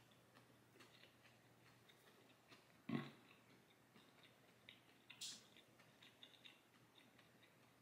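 Near silence with faint clicking mouth sounds of chewing a crispy fried mozzarella stick, a short low vocal sound about three seconds in and a brief breathy hiss about five seconds in.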